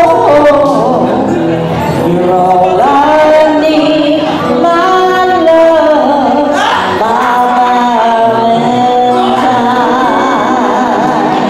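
A woman singing karaoke into a microphone over a backing track, amplified through loudspeakers; her held notes waver with vibrato.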